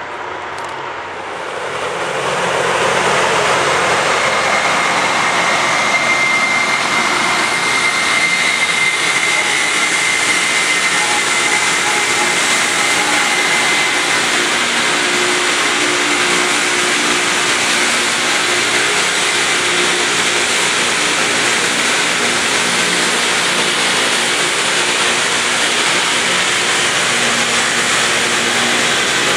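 Loram rail grinding train grinding the rail: a loud, steady hissing noise from the grinding stones that swells over the first couple of seconds and then holds, over a low diesel hum, with a thin high squeal for several seconds.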